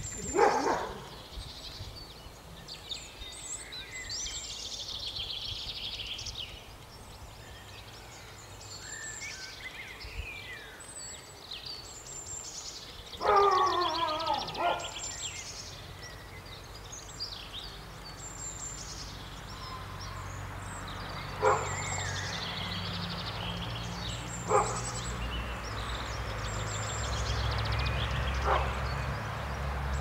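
Small garden birds chirping and singing on and off, with a dog yelping just after the start and again, louder and with a falling pitch, about halfway through. Three short sharp sounds come later.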